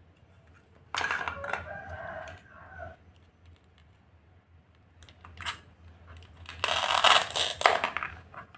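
Plastic toy vegetable pieces set down with a clatter about a second in. Near the end comes a loud, rough rip as a plastic toy knife pulls apart the velcro holding the halves of a toy bitter gourd together.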